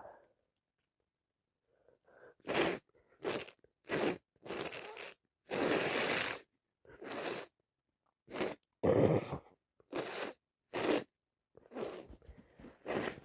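A woman with a head cold sniffling and sneezing: a rapid run of about a dozen short, breathy bursts starting a couple of seconds in, with one longer burst near the middle.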